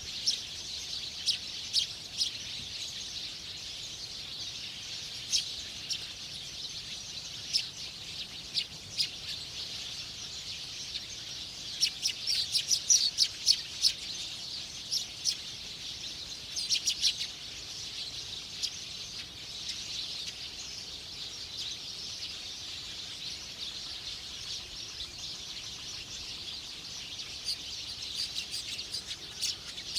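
Small wild birds chirping, with short sharp chirps in quick clusters, the busiest about halfway through, over a steady high hiss of background birds or insects.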